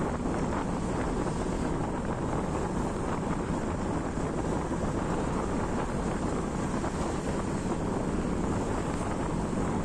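Steady wind rushing over the microphone of a moving motorcycle, with the bike's engine and tyres running underneath at a constant speed.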